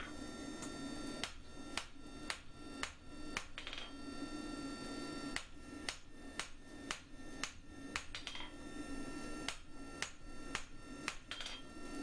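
Hand hammer striking a hot spring steel bar on an anvil, drawing round stock out to square. The blows come about two a second in runs broken by two short pauses, and the anvil rings on between them.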